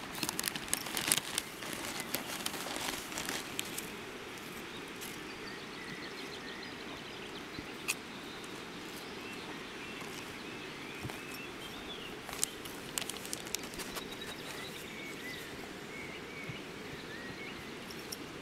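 Crinkling and clicking for the first few seconds, then steady open-air background with faint, scattered bird chirps.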